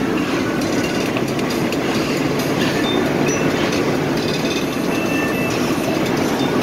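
Steady rumble of a moving vehicle heard from inside it, with brief faint high squeaks now and then.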